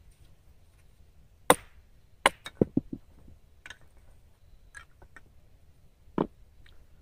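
Firewood being handled and struck: one sharp crack, then a quick run of four or five wooden knocks, and one more knock near the end.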